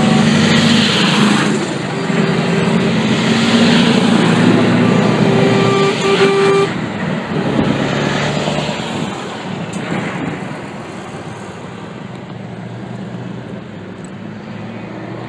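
A convoy of Scania trucks driving past, with diesel engine and tyre noise loud at first and a short horn blast about five seconds in. The noise then fades as the last truck moves away.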